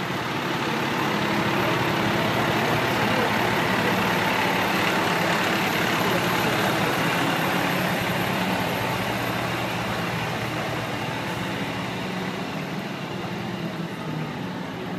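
A fire engine's diesel engine running as the truck pulls away and passes close by. It is loudest in the middle and slowly fades as the truck moves off down the street.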